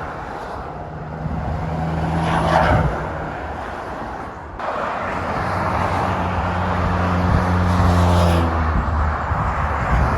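Heavy diesel lorries passing on a motorway: low engine drone and tyre noise swelling and fading as each goes by, with an abrupt change to another passing lorry about four and a half seconds in.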